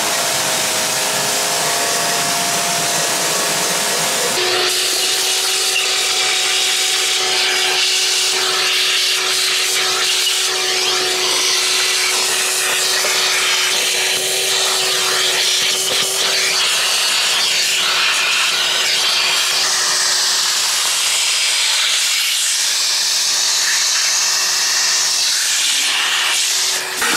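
A pressure washer sprays water onto a tyre for the first few seconds. Then a vacuum cleaner runs steadily with a constant whine and hiss as its hose nozzle sucks dust and debris from the car's engine bay and floor.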